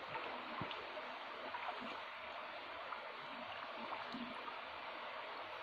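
River water babbling over rocks, a steady rush of water.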